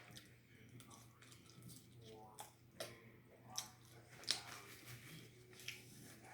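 Quiet eating sounds: about half a dozen short, wet mouth clicks and smacks of chewing, the loudest about four seconds in, over a low steady hum.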